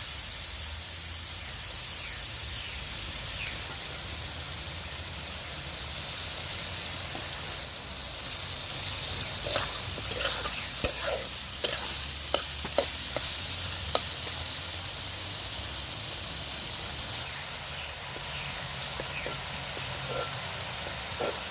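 Hot oil sizzling steadily in a pan as food fries. Around the middle come a run of sharp clicks and knocks, typical of a utensil striking and stirring in the pan.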